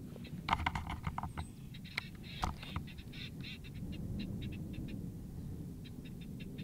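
A rapid series of short, high bird-like calls, busiest in the first three seconds and sparser later, over a steady low rumble.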